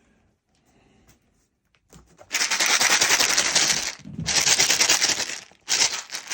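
Dry cat kibble shaken hard in a box, a fast rattle in three bouts of one to two seconds each, starting about two seconds in. The shaking is a call to bring a kitten running.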